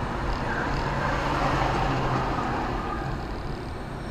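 A car driving in city traffic, heard from inside the cabin: steady road noise with a low engine hum.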